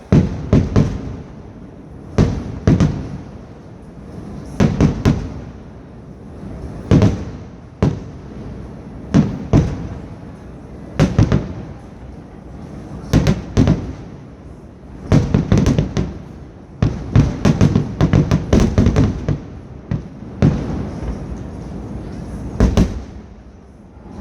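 Fireworks exploding: loud bangs in irregular clusters, often two or three in quick succession, each followed by a rolling echo.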